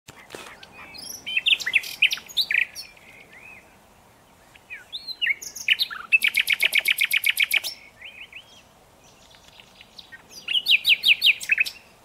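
Common nightingale singing in three phrases of varied whistles and chirps. The middle phrase breaks into a fast, even run of repeated notes, about a dozen a second.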